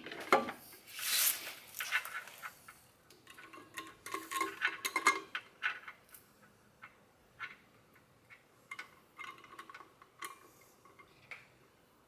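Light metal clicks and clinks as a bolt is worked against the steel mounting brackets of a pair of aftermarket disc horns, with a brief rustle about a second in. The clinks come in a busy run in the first half and thin out to scattered ticks later.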